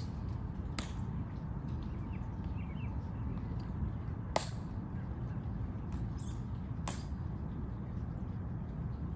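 Three short, sharp clicks from the ceremonial guards' drill movements, spaced a few seconds apart (about a second in, midway and near seven seconds), over a steady low outdoor rumble.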